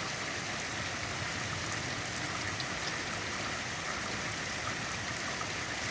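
Heavy rain falling steadily, an even hiss with scattered drops ticking close by.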